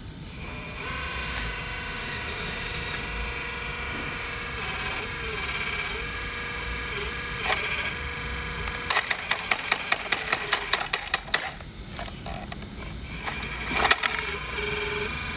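Hydraulic RC excavator's pump whining steadily with several tones, its pitch dipping and stepping now and then while it digs. About nine seconds in comes a quick run of about a dozen sharp clicks, with single knocks a little before and near the end.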